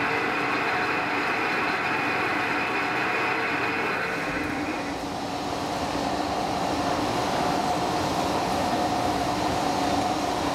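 Mechanical three-roller plate rolling machine (W11-10X3000) running, its gearbox-driven bottom rolls turning to bend a metal plate: a steady mechanical whine and hum. About five seconds in the tone changes, the higher whine dropping away and a lower hum taking over.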